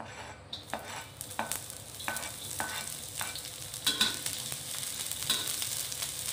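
Chopped onion starts sizzling in hot oil in a wok about half a second in. A metal spatula scrapes and clinks against the wok again and again as the onion is stir-fried.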